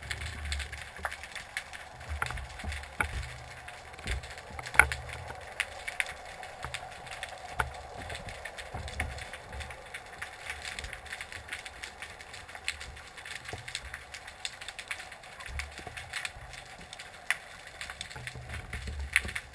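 Underwater ambience heard through a camera housing: many scattered sharp clicks and crackles over a faint hiss, with low rumbles that come and go, typical of water moving against the housing. The loudest click comes a little under five seconds in.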